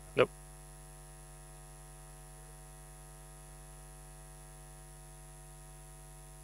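Steady electrical mains hum with many even overtones, and one short, loud sound about a quarter of a second in.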